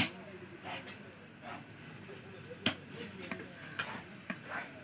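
Large fish knife chopping through fish pieces onto a wooden log block: a few sharp, irregularly spaced chops, the loudest about two and a half seconds in. Faint chatter behind.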